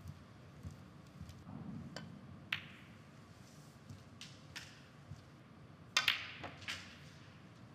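Snooker balls clacking: sharp clicks of cue tip on cue ball and cue ball on object ball, a few single knocks and then a loud close double click about six seconds in, over a quiet arena hush.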